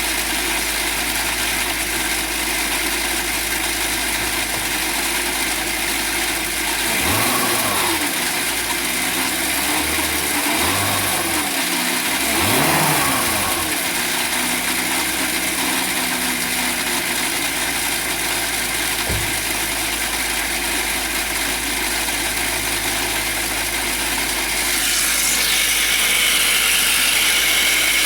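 BMW E46 323i's M52 straight-six engine idling, blipped up and back down three times. Near the end a higher, wavering squeal joins the idle.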